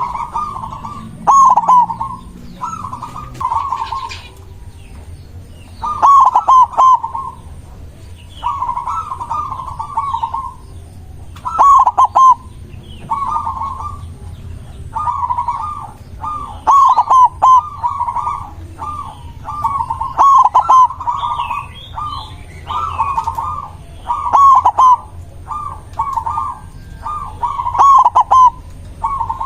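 White zebra dove (perkutut) cooing over and over in its rolling, stuttering call, short phrases every second or two, sometimes running on back to back. Faint high chirps of small birds come in between.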